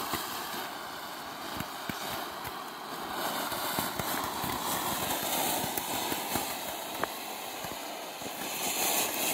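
TNT 'Disco Turkey' ground fountain firework burning, its sparks spraying with a steady hiss and scattered small crackles.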